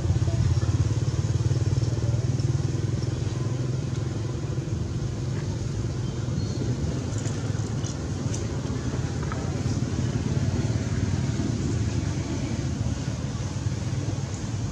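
Steady low rumble, with a few faint clicks between about seven and eight and a half seconds in.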